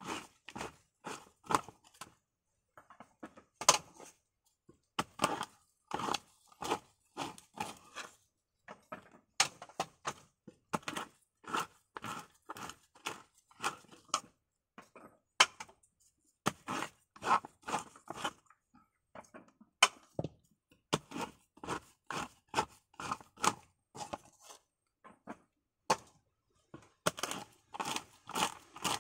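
Copra (coconut meat) being pried out of a coconut half-shell by hand: quick runs of short cracking and scraping strokes, broken by brief pauses.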